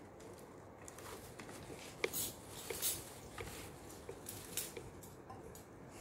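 Handling noise while unpacking: a sharp clink of red dishes knocking together about two seconds in, then several short rustles of shredded paper packing filler as hands move through it.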